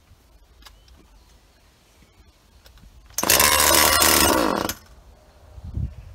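Husqvarna 236 two-stroke chainsaw given a pull on its recoil starter on its first start attempt with a replacement carburettor. A loud burst begins about three seconds in, lasts about a second and a half, and dies away with a falling pitch.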